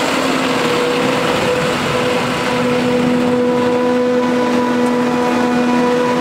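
Claas Jaguar 870 self-propelled forage harvester running steadily at working speed while chopping maize for silage: a continuous machine drone with a held, even pitch over a rushing noise.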